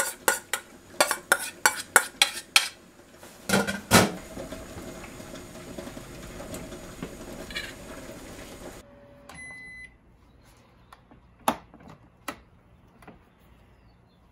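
Clinks of a plate knocked against stainless-steel bowls as shredded cabbage is scraped off: about eight sharp clinks in the first three seconds and a heavier knock near four seconds, over a steady hum. After a cut, near nine seconds, a short electronic beep signal from an IH rice cooker marking the end of cooking, then a couple of clicks.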